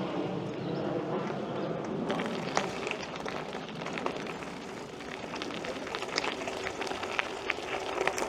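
An airplane's engine drone overhead fades out over the first couple of seconds. Then a bicycle rolls over rocky ground with scattered irregular clicks and rattles.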